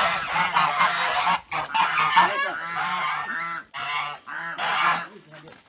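Flock of domestic geese honking, many calls overlapping in bursts with short breaks and dying down near the end: agitated honking during a fight in the flock, with one gander being set upon.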